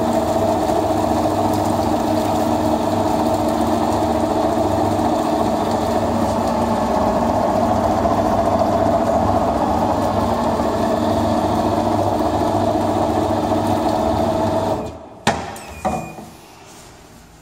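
Electric zırh machine (bowl meat chopper) running steadily with a motor hum and whine while its blade chops meat for kebab. It cuts off about fifteen seconds in, followed by two sharp knocks as the clear lid is unlatched and lifted.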